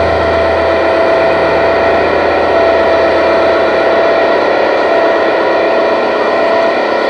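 Live band music from a loud outdoor concert PA, picked up close on a phone so it is heavily distorted and smeared, with a held note running through it.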